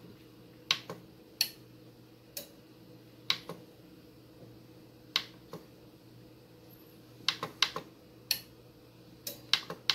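Relays inside a Next Wave AX600 satellite receiver/positioner clicking on and off as channels are changed, switching the voltage that turns the motorised dish. About a dozen sharp clicks come at uneven intervals, several in quick clusters, over a faint steady hum.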